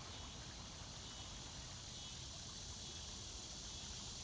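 Steady outdoor ambience: a constant high-pitched insect chorus over a low, even rumble.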